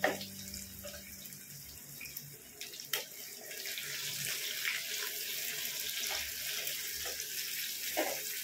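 Eggplant pieces sizzling steadily as they shallow-fry in hot oil in a kadhai, with a spatula stirring them and knocking sharply against the pan at the start and again about three seconds in.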